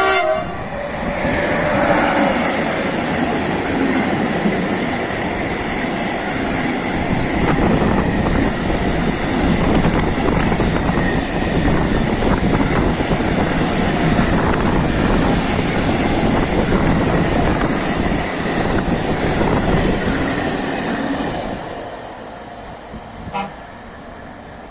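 The end of an electric locomotive's horn blast at the very start, then a freight train of tank wagons running past close by with loud, steady wheel and rail noise for about twenty seconds, fading out as the last wagons move away.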